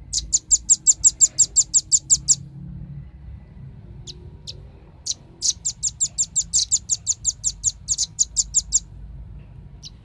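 Velvet-fronted nuthatch calling: two rapid runs of sharp, high chips, about seven a second, the first lasting about two seconds and the second about three and a half. A few single chips fall between the runs and one comes near the end.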